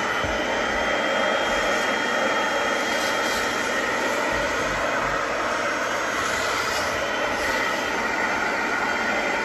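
Small portable carpet cleaner's vacuum motor running with a steady whine as its hand-tool nozzle sucks dirty soapy water out of car carpet.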